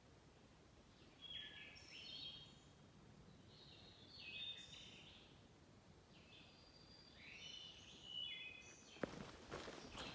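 A songbird singing faintly in woodland: three short phrases of quick, high chirping notes a couple of seconds apart. Footsteps on the trail start near the end.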